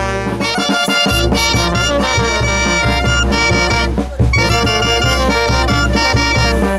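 Brass band playing a dance tune: saxophones and trumpets over a steady bass-drum beat.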